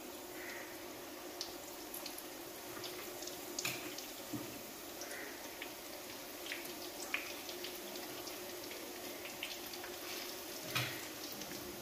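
Besan pakora batter deep-frying in hot oil in a kadai: a steady sizzle with scattered crackles and pops, one louder a little before the middle and another near the end.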